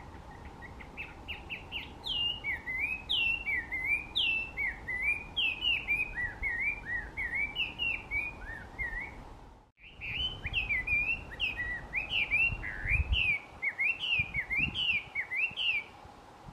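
Chinese hwamei (Garrulax canorus) singing a long, loud, varied song of fast whistled notes that slide up and down, breaking off briefly near the middle before carrying on.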